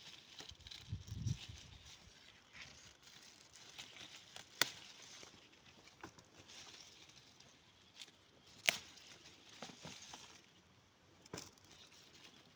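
Bell pepper plants rustling as peppers are picked, with three sharp snaps spread through and a dull thud about a second in.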